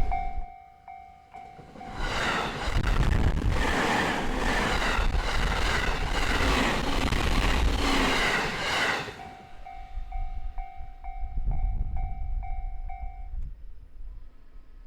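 A Japanese level-crossing warning bell rings in a steady repeating two-tone pattern. About two seconds in, a JR Narita Line train passes loudly with rumble and wheel clatter for roughly seven seconds. The bell rings on after the train and stops shortly before the end, the barrier cycle finishing.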